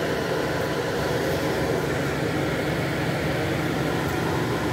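Steady mechanical whir with a low hum.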